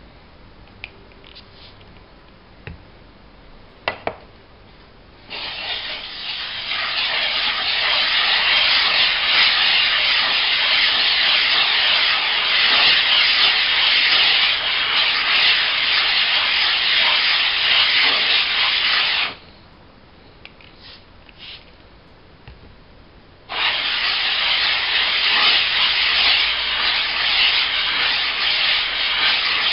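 JCK 1000/4000 combination water stone being lapped flat, rubbed face-down on a glass plate with silicon carbide grit: a steady scraping that starts about five seconds in, stops for a few seconds about two-thirds of the way through, then resumes. A few light clicks and a knock come before it as the stone is handled and set down.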